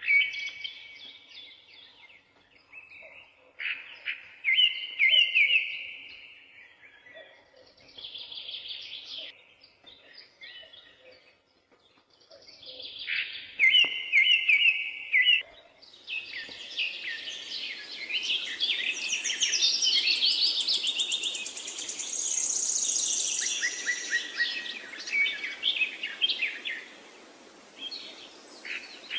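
Birds chirping and singing in short, repeated trilled phrases. About halfway through, a steady hiss joins and the song turns into dense, fast trills.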